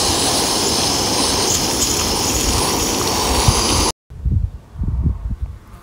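Portable gas camping stove on a Campingaz cartridge, its burner hissing steadily under a pot of water being heated for coffee; the hiss cuts off abruptly about four seconds in, leaving a quieter stretch with a few short low rumbles.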